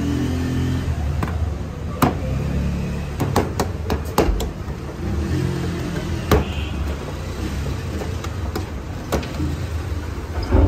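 Bread dough slapped between the palms and patted flat on a board by hand: several sharp slaps, a cluster of them about three to four seconds in. Beneath them is a steady low rumble.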